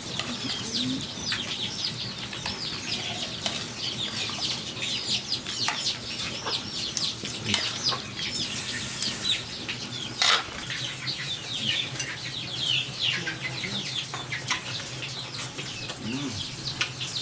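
Many small birds, likely chickens' chicks, chirping and peeping continuously in quick, high, overlapping calls, with a single sharp knock about ten seconds in.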